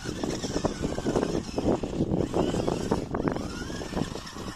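1/16 scale 4WD rock crawler RC car driving over loose sand and dirt clumps: dense crunching and clatter from the tyres and chassis, with a faint electric motor and gear whine that rises and falls.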